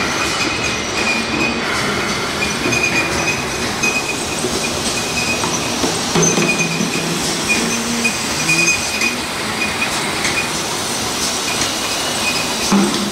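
Automatic rotary oil filling and capping machine running, with plastic jerry cans moving through it on a conveyor: a steady mechanical clatter with scattered clinks and a high-pitched squeal that comes and goes.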